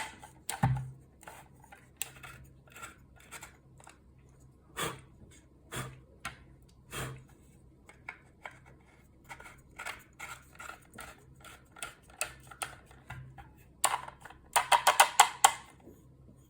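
3D-printed plastic parts clicking and knocking as a threaded extension is screwed on and off a magazine tube, working in the new threads. The clicks come irregularly, with a quick run of louder clicks near the end.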